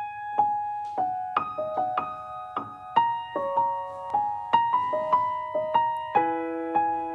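Piano playing a slow, gentle passage of single notes and chords, each struck and left to ring and fade, a few strikes a second.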